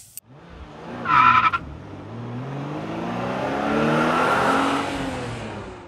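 Car sound effect: a brief tyre squeal about a second in, then the engine accelerating, rising in pitch and swelling to its loudest near four seconds before fading away.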